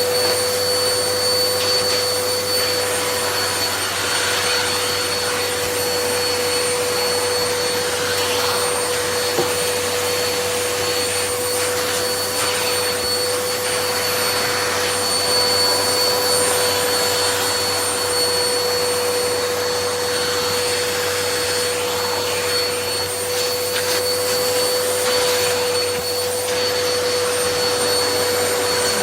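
Hoover Pet Max Complete bagless upright vacuum cleaner (UH74110M) running steadily, a loud even rush of air with a constant high-pitched whine over a lower hum.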